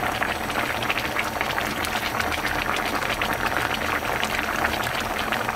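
A pot of mackerel braised with aged kimchi (godeungeo mugeunji jorim) bubbling on the heat: a steady, dense crackle of small bubbles popping in the red braising liquid.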